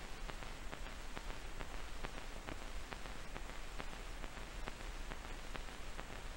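Faint steady hiss with scattered light crackles and a low hum underneath: the surface noise of an old 1951 film soundtrack in a gap between narration and music.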